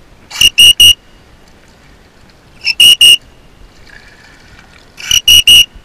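Storm Whistle safety whistle blown in three bursts of three short, very loud, high-pitched blasts, the bursts about two and a half seconds apart.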